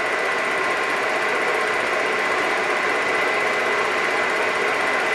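8 mm film projector running: a steady mechanical whir with a fine, rapid clatter and a thin steady high tone.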